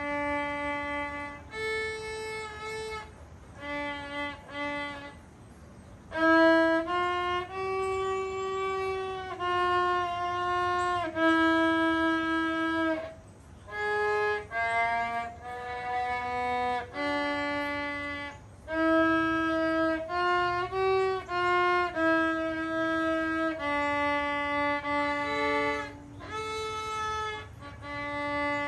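Unaccompanied violin played by a child: a simple melody of mostly held notes, with a few short detached notes at the start, in phrases separated by brief pauses.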